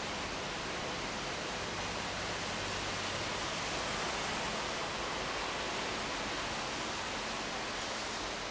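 Steady, even hiss of background noise. The kittens' tussling on the cloth bag is not heard as distinct sounds.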